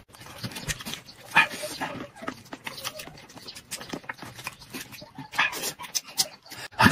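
Close-up eating sounds: meat being sucked and gnawed off a red-braised alligator jawbone, with many small wet clicks and smacks and a few short louder mouth noises.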